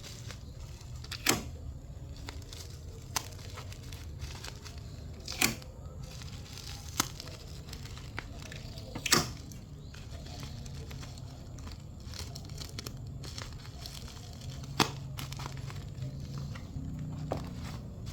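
Packing materials being handled: several sharp rips, like packing tape torn off a roll, with plastic crinkling between them.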